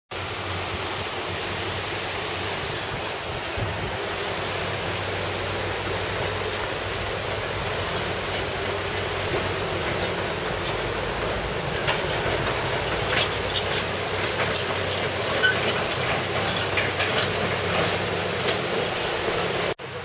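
Mountain torrent still running high and murky after a flood, rushing over a gravel and stone bed in a steady, even rush. In the second half a scatter of brief high-pitched chirps or ticks sits on top.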